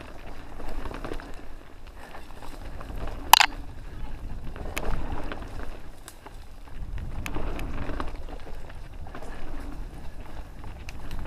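Wind buffeting the microphone while on the move, with a low rumble that swells and fades and a few light clicks; one sharp, loud click or snap about three and a half seconds in.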